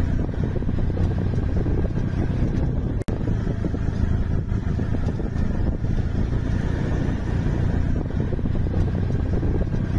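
CNG auto-rickshaw running steadily at road speed, its engine and road noise heard from inside the open-sided cabin, with a brief dropout about three seconds in.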